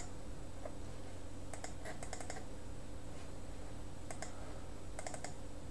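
Scattered clicks of computer input, single and in quick groups of two or three, over a low steady background hum.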